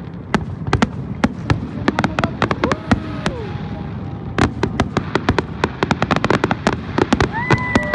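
Fireworks display: a rapid, dense string of bangs and crackles from bursting shells, several per second throughout. About seven seconds in, a steady held tone with several pitches starts under the bangs.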